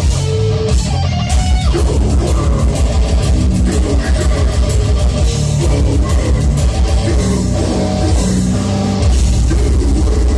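Heavy metal band playing live: distorted electric guitars over a drum kit, with a run of rapid, evenly spaced drum and cymbal hits in the first half.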